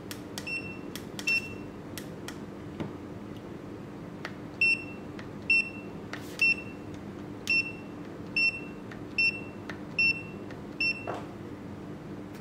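Kaiweets KC602 clamp meter giving short, high key-press beeps as its buttons are pushed, each beep with a small click of the button. There are about ten beeps: two near the start, then a run of about one a second from around four and a half seconds in.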